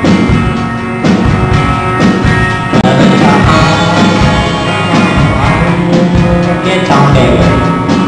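Two-piece band playing a country-rock song live: electric guitar and drum kit, with a male voice singing at the microphone.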